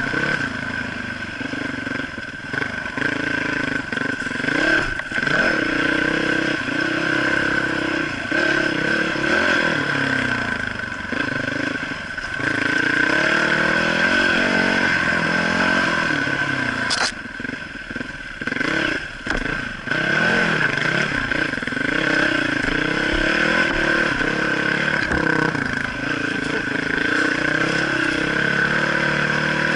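Dirt bike engine revving up and down while the bike is ridden along a rough forest trail, its pitch rising and falling with the throttle. It eases off briefly a little over halfway. A steady high whine runs underneath.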